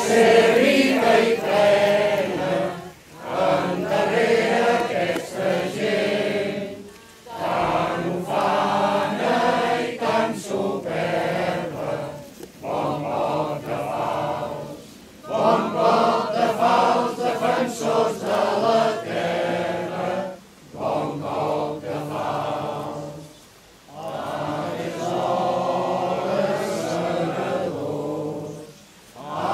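A crowd singing together in slow phrases, with short breaks for breath every few seconds.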